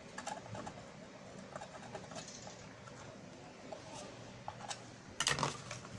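Faint scratching of a metal tweezer tip scraped across a printed circuit board's solder side, clearing hairline shorts between traces, with a bird cooing in the background. A louder scrape or knock comes about five seconds in.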